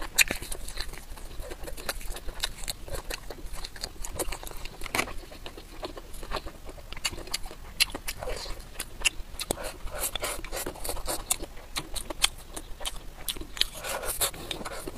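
A person chewing and biting food, with many short crunchy clicks and smacks throughout, a little louder around five seconds in, ten seconds in and near the end.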